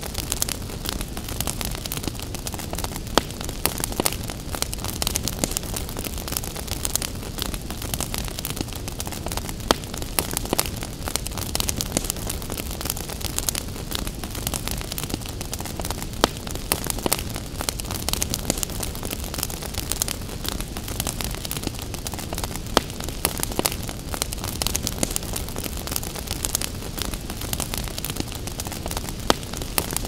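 Crackling wood fire: a steady hiss of burning with frequent sharp crackles and pops.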